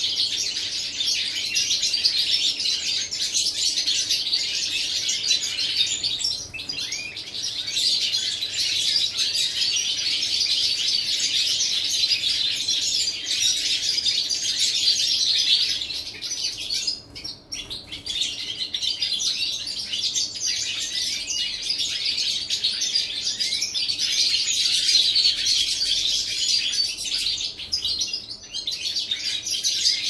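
A flock of European goldfinches singing and twittering together: a dense, unbroken chorus of rapid high notes that briefly thins out about seventeen seconds in.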